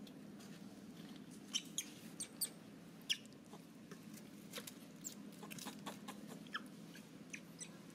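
A scatter of short, high-pitched animal squeaks and chirps, the loudest cluster between about one and a half and three seconds in and a few more later, over a steady low hum.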